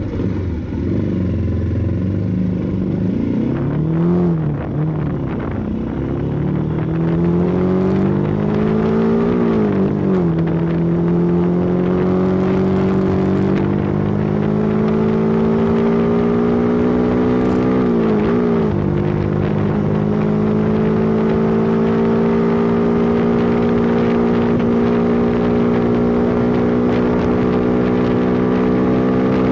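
Motorcycle engine running under way, its pitch climbing with speed, dropping sharply about ten seconds in and again a little past halfway, then climbing slowly and holding fairly steady.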